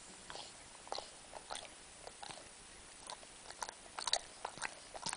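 Sleeping Rhodesian Ridgeback making small mouth noises: irregular short clicks and smacks of jaws and lips, sparse at first and coming thicker from about three seconds in.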